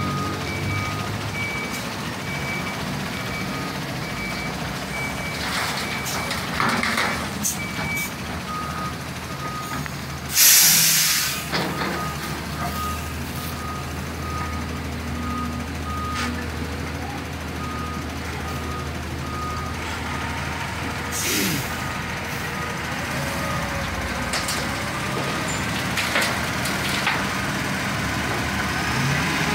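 Reversing beeper on a Volvo VM 270 dump truck sounding a steady run of short beeps over the truck's diesel engine running. A loud air-brake hiss comes about ten seconds in, and a shorter one around twenty-one seconds.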